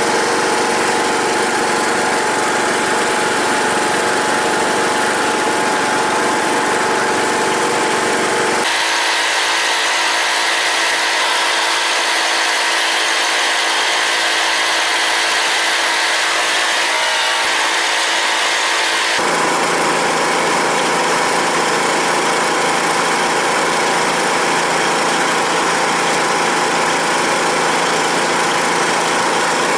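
Troy-Bilt Pony riding mower's 17.5 hp, 500 cc Briggs & Stratton engine running steadily. The sound changes abruptly twice, about nine and about nineteen seconds in, losing its low end in between and then getting it back.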